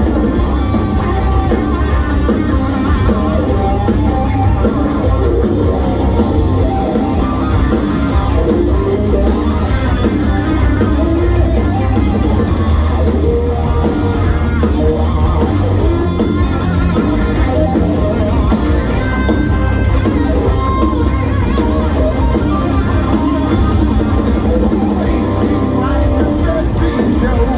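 Heavy metal band playing live: distorted electric guitars, bass and a drum kit, loud and steady, heard from within the audience.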